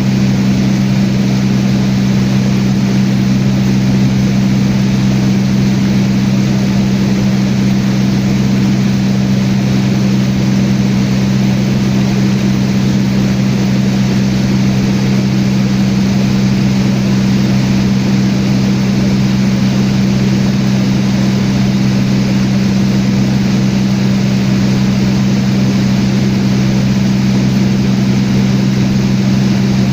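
Small propeller airplane's engine running steadily with an unchanging low drone, holding the same pitch throughout.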